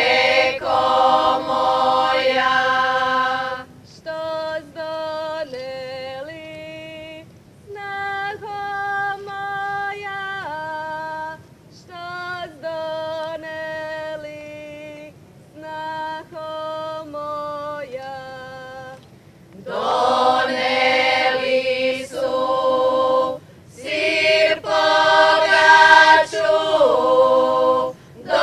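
Group of women singing a Croatian folk song unaccompanied, loud at the start, then a thinner, quieter passage, and the full group loud again about two-thirds of the way in.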